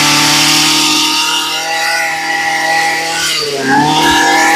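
Tanaka 22 cc two-stroke brush cutter engine, freshly pull-started, revving high and steady. Its revs dip about three and a half seconds in, then climb straight back up.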